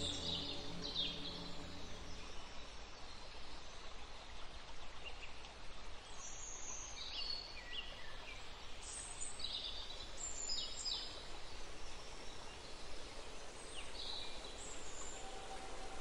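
Small birds chirping and calling in short scattered notes, high-pitched, over a faint steady outdoor hiss.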